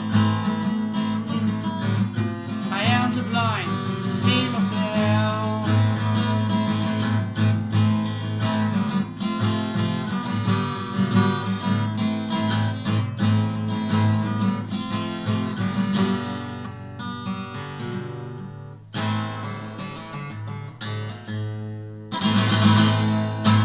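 Acoustic guitar strummed and picked, a run of ringing chords that thins out toward the end, then one last full strummed chord rings out just before the end.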